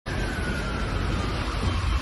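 Emergency-vehicle siren wailing faintly, its pitch slowly falling, over a steady rumble of city street noise and wind.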